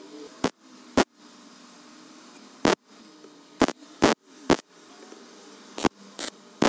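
MIG welder laying short tack welds on a steel bracket: about nine brief crackling bursts, irregularly spaced, over a low background hum.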